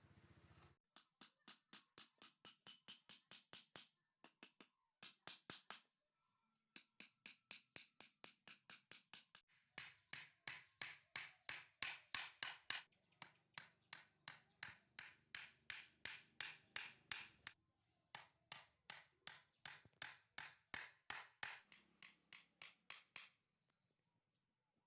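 Hand saw cutting through wood in quick, even back-and-forth strokes, about four or five a second. The strokes come in several runs with short pauses between them and stop near the end.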